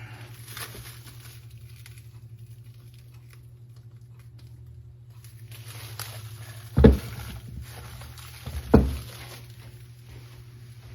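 Rustling of packing material as reworked Shovelhead engine parts are unpacked and handled, with two heavy thuds about two seconds apart in the second half as parts are set down. A steady low hum runs underneath.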